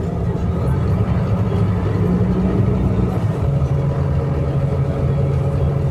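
Scania K310IA bus engine running with a steady low hum, its pitch stepping down slightly about three seconds in.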